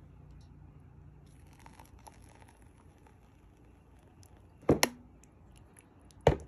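Kitchen handling sounds: faint crinkling and light clicks, then a sharp double knock about two-thirds of the way through and another sharp knock near the end.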